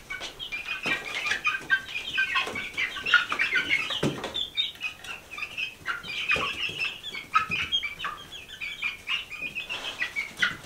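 Chickens clucking and chirping, many short calls one after another, with a few short thumps or rustles among them.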